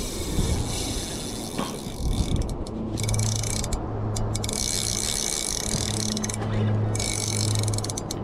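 Spinning reel on a hard-bent jigging rod working under a hooked fish: its mechanism ticks rapidly in three stretches, with short breaks about four and six and a half seconds in. A steady low hum runs under it from about three seconds in.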